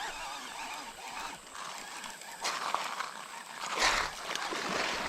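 Running creek water as a steady hiss, with a few brief splashes, the clearest about four seconds in.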